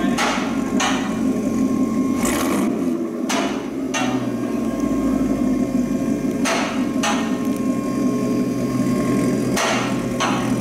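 2017 Corvette C7 Stingray's 6.2-litre LT1 V8 idling steadily through a newly installed AWE aftermarket exhaust. Sharp knocks, mostly in pairs about half a second apart, cut in over it every few seconds.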